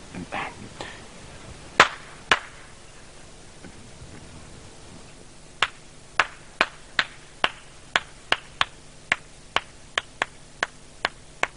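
Finger snapping: two sharp snaps about two seconds in, then from about five and a half seconds a steady beat of snaps, a little over two a second and slowly quickening.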